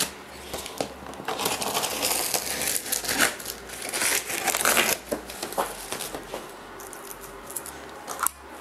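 Cardboard shipping box being cut open with a utility knife and its flaps pulled back: irregular scraping, crinkling and tearing of cardboard and tape, busiest in the first five seconds, then fainter rustles and light knocks.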